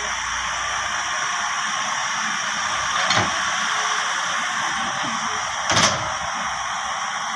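John Deere 160 excavator working: a steady machine noise, with two short knocks about three and six seconds in.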